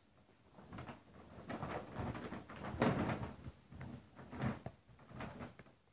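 Paper gift bags rustling and crinkling as items are pulled out and handled, with uneven bursts that are loudest about three seconds in.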